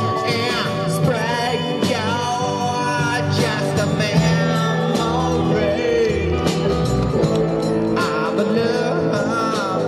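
Live rock band playing, with acoustic and electric guitars, drums and keyboard, in a steady full mix.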